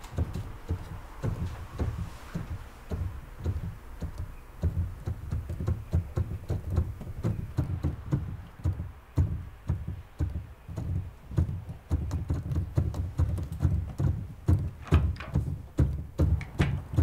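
Piano being played: a steady run of struck notes and chords with a heavy bass, several a second, with brighter upper notes near the end.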